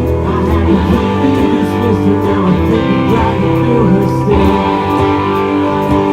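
Live rock band playing loudly, guitars strumming over a steady beat.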